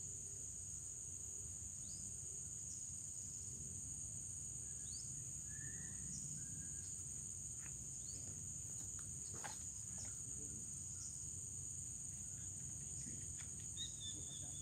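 Steady high-pitched chorus of insects, with a few short rising chirps and scattered faint clicks.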